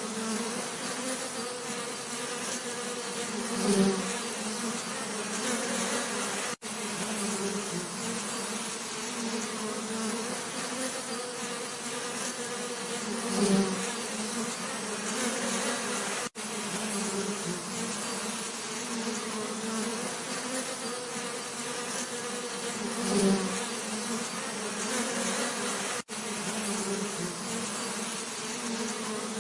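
Bees buzzing in a steady low drone, swelling louder about every ten seconds as one comes close, with a split-second gap three times where the recording loops.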